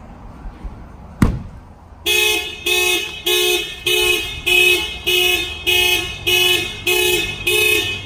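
A single knock of a fist on the car's window glass about a second in, then the Clifford car alarm goes off: a loud horn-like tone pulsing on and off just under twice a second, set off by the blow to the glass.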